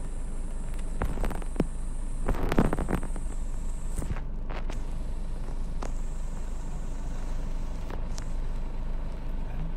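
Slow street traffic heard from inside a car cabin: a steady low rumble of engines and motorbikes, with a few short knocks and clicks, the loudest about two and a half seconds in.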